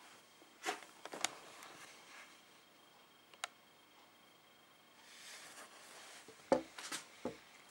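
Handling noise: a few soft clicks and knocks from a handheld meter being held and moved, with a soft hiss from a breath near the end.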